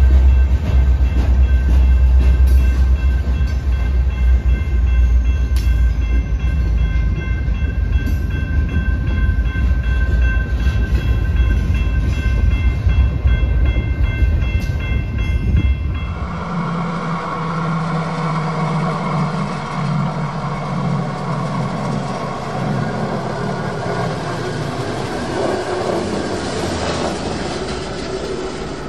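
Diesel-hauled freight train running close by, a loud low rumble from the EMD GP60 locomotives and rolling cars, with a thin steady high whine over it. About sixteen seconds in, the sound changes abruptly to a quieter, thinner train sound.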